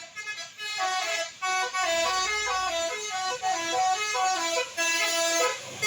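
A bus's telolet horn, a set of musical air horns, playing a quick tune of stepped notes that starts under a second in.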